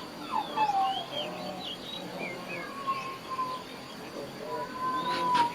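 Animal chirping: many short, high chirps and squeaks, with two longer steady whistled notes in the second half, the last ending in a sharp click near the end.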